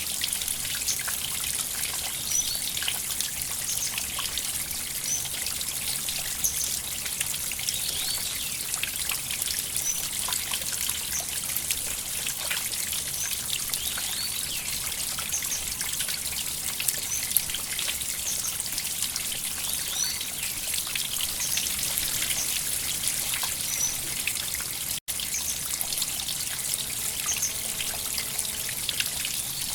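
River water trickling and splashing steadily over a shallow bed, a constant hiss full of small droplet plinks. The sound cuts out for an instant once, near the end.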